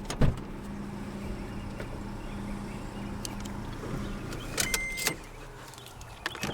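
A sharp click, then a steady electric motor hum for about four seconds, typical of the 2012 Scion iQ's power window running. Near five seconds comes a short clatter with a brief high beep.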